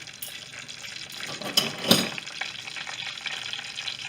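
Damp corn tortilla sizzling in hot vegetable oil in a frying pan, a steady crackling hiss. Two sharp clacks come about two seconds in.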